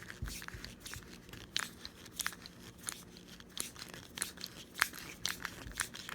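Irregular light clicks and rattles of a small metal hose clamp being handled and fitted around a cracked plastic stove-knob post.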